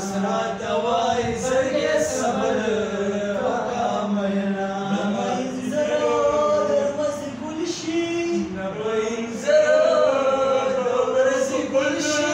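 Men singing a Pashto tapay unaccompanied, in long drawn-out melodic lines, with a few sharp knocks here and there.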